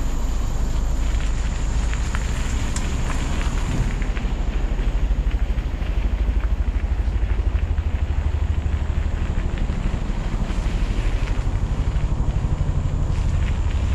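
Wind rumbling on the camera microphone of a mountain bike riding a dirt trail, with scattered clicks from the tyres and bike over the ground. From about four seconds in, the low rumble takes on a fast, even pulsing.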